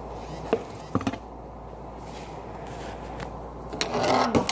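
Kitchen clatter over a steady low hiss: a few light knocks about half a second and a second in, then a denser burst of clattering near the end as things are handled around the sink and stove.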